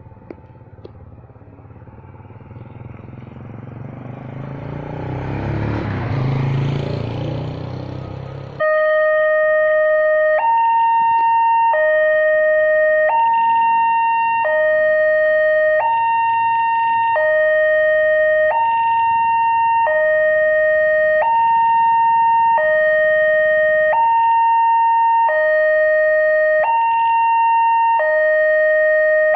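A rumbling noise grows louder for about eight seconds, then cuts off as a railway level crossing's electronic warning siren starts, loud and steady, alternating between a low and a high tone about every second and a half.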